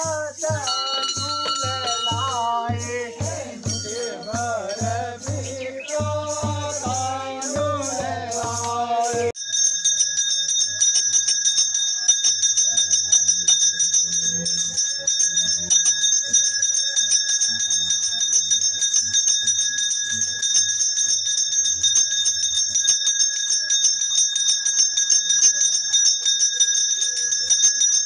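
Group singing of a Kumaoni khadi Holi song over a regular drum beat. About nine seconds in, it cuts to a temple bell rung rapidly and continuously, a steady ringing, with the drum fainter beneath until near the end.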